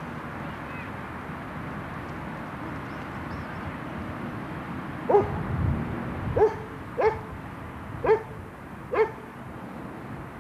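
A dog barking: five short barks about a second apart in the second half, over a steady background hiss.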